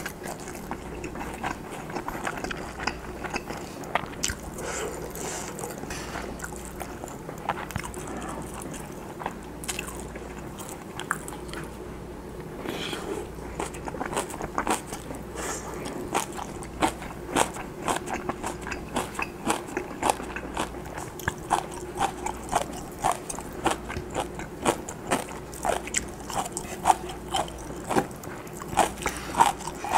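Close-miked chewing and mouth sounds of a man eating fried Spam with rice and stir-fried kimchi: short wet clicks that grow louder and quicker about halfway through, around two or three a second. Now and then a wooden spoon and chopsticks scrape the wooden bowl, over a faint steady hum.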